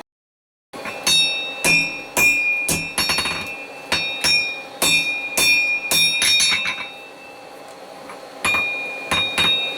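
Blacksmith's hand hammer striking a hot steel bar on an anvil, about two blows a second, each blow leaving the anvil ringing. The blows start after a short silent gap, stop for about a second and a half, then start again near the end.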